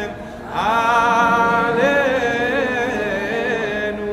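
A solo voice chanting a slow, ornamented Selichot melody. After a brief breath, one long phrase is held with wavering turns of pitch.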